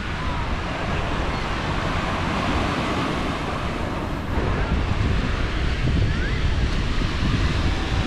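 Sea surf breaking and washing ashore in big waves, with wind rumbling on the microphone; it swells a little louder about halfway through.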